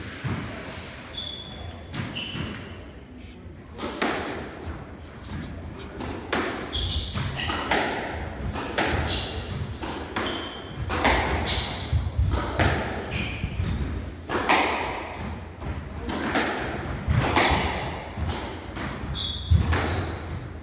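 Squash rally: the ball cracking off rackets and thudding against the court walls at irregular intervals, about one hit a second, with short squeaks of shoes on the wooden floor.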